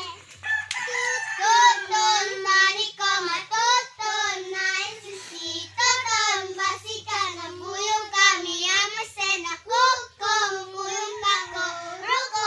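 Young children singing a song together in high voices, a continuous bouncy tune.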